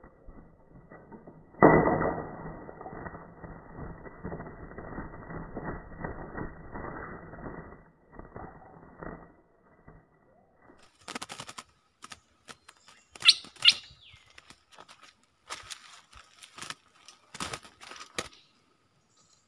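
A stripe-throated bulbul landing on a bamboo trap cage. First comes a slowed-down, muffled hit and wing flutter. Then, at normal speed, come sharp clicks and rattles of the cage, wing flaps and a couple of loud chirps.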